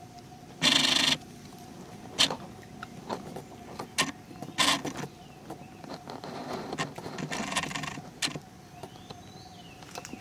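Close rustling and scuffling with sharp clicks, from macaques moving and foraging right by the microphone: two short loud rustling bursts and several sharp clicks, over a faint steady tone.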